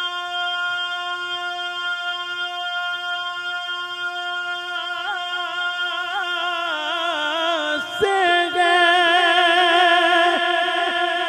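Male naat reciter singing one long held note without words, unaccompanied, over a microphone. The note is steady at first, then from about halfway through it wavers into ornamented runs and grows louder about eight seconds in.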